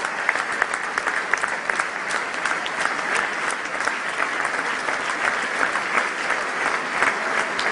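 Large theatre audience applauding: dense, continuous clapping at a steady level.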